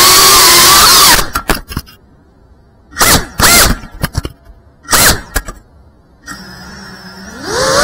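5-inch FPV quadcopter's motors whining, their pitch wavering with throttle, then cutting out about a second in with a few knocks as the drone crashes. Two short bursts of motor spin with rising and falling pitch follow as it flips itself back over, then the motors idle with a low hum and spool up with a rising whine near the end as it takes off again.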